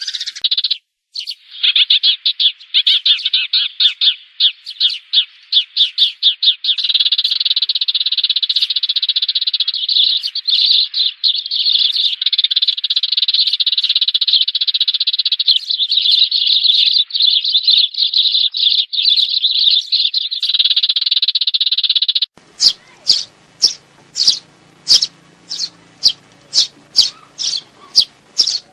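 Sparrows chirping in a loud, dense, rapid chatter, played as a recorded lure call for trapping sparrows. Near the end the recording changes abruptly to separate, evenly spaced chirps about two a second.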